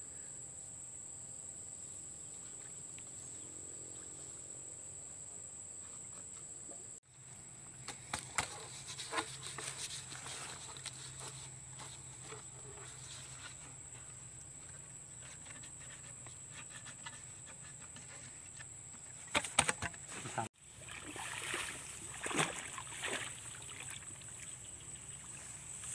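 Insects trilling steadily at a high pitch, with rustling and scattered knocks from handling in the grass. The sound cuts out briefly twice.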